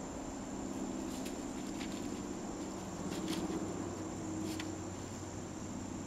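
Dog rooting for a mole in dry leaf litter: faint rustles and scratches of leaves and twigs as it noses and steps about, over a steady low hum.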